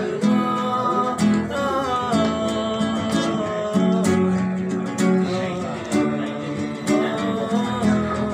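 Acoustic guitar strummed in a steady rhythm while a man sings a song over it.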